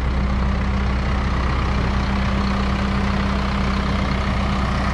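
Diesel truck engine idling steadily, an even low drone that does not change.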